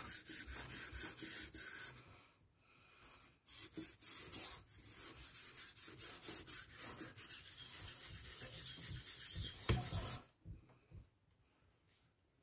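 Steel knife blade being stroked rapidly back and forth on a wet whetstone, a rasping scrape with each stroke. The strokes pause for about a second and a half two seconds in, resume, and stop about ten seconds in, leaving a few faint clicks.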